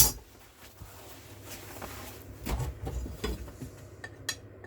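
Iron hinge parts clinking and knocking together as they are handled and fitted onto the rod. There is a sharp knock at the start, then a few scattered light clinks.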